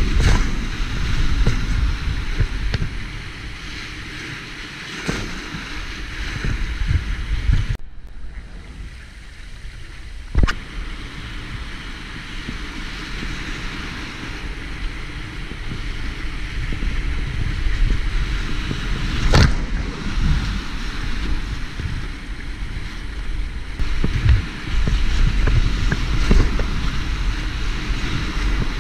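Whitewater rapids rushing and splashing around a kayak as it paddles through. The sound goes dull for about two seconds around eight seconds in, and there are two sharp knocks, one about ten seconds in and another near twenty seconds.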